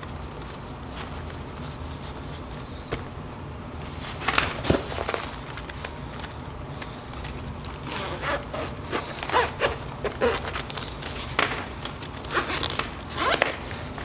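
Cables and small gear being packed into a zippered fabric tech organizer case, with irregular rustles, clicks and scrapes starting about four seconds in. Near the end the clamshell case is folded shut and zipped.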